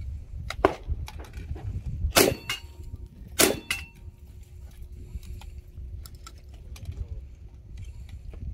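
Three rifle shots at steel targets, each answered by the clang of the steel plate. They come about half a second in, just past two seconds and about three and a half seconds in; the last plate keeps ringing with a steady tone for a few seconds.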